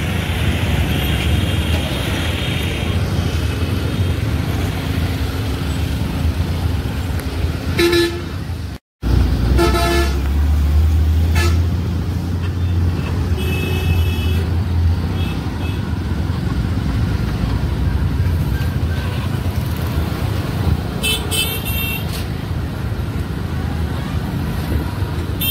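Steady low rumble of a vehicle travelling on the road, with short horn toots from traffic several times, around eight, ten and twenty-one seconds in and again near the end. The sound cuts out for a moment about nine seconds in.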